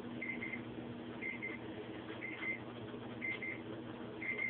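A pair of short high electronic beeps repeating about once a second over a steady low hum and faint noise, with a thin stream of tap water running into a kitchen sink.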